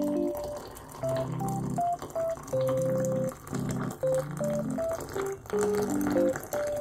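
Gentle background keyboard music with short repeating melodic phrases over a bass line, over the faint sound of a thin stream of water pouring into a glass measuring jug.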